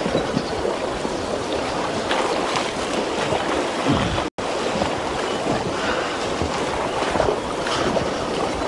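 Steady rush of river current running over a rocky bed, with a momentary break in the sound about four seconds in.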